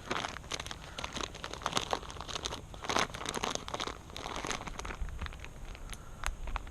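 Close, irregular crinkling and rustling from hands handling something near the microphone, with a stream of small crackles and a few louder clusters.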